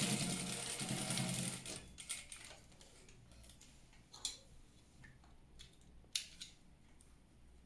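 Industrial lockstitch sewing machine stitching rapidly with a steady motor hum, stopping after about two seconds. Then a few sharp, isolated clicks as the fabric and thread are handled, the loudest about six seconds in.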